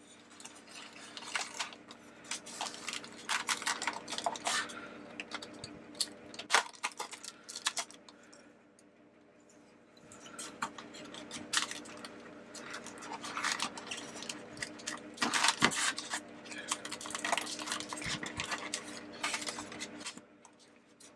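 Clear plastic wrap crinkling and crackling as it is cut and pulled off a styrofoam packing tray, in spurts with a short pause about eight seconds in, over a faint steady hum.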